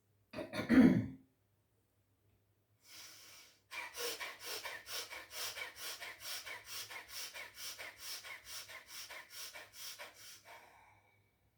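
Bhastrika (bellows breath) pranayama: rapid, evenly paced forceful breaths in and out, about three a second, growing fainter toward the end. Before them come a single loud burst of breath about half a second in and one long intake of breath.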